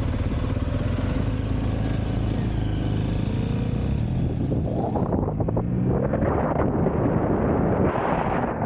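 A vehicle engine running at low speed, its pitch rising and falling as it is driven into a parking lot. About five seconds in, a loud rushing noise joins it.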